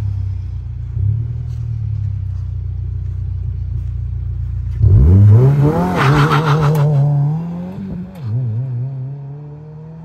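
2022 Subaru WRX turbocharged 2.4-litre flat-four through an Invidia R400 catback exhaust, held at steady revs for about five seconds, then an all-wheel-drive launch. The exhaust note jumps suddenly louder and climbs in pitch, dips briefly about three seconds later and climbs again, then fades as the car pulls away.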